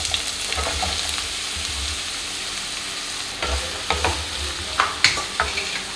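Chopped red onions sizzling in hot oil in a nonstick pan. A bamboo spatula stirs them, scraping across the pan several times in the second half.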